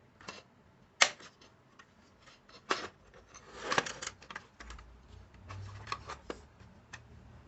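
Irregular sharp clicks and knocks of small hard objects being handled, the loudest about a second in and a denser clatter around the middle. A low hum starts a little past halfway.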